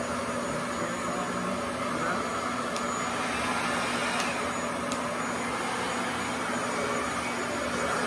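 RevAir reverse-air hair dryer running on tension setting 2: a steady vacuum-like rush of air with a constant hum and a high whine.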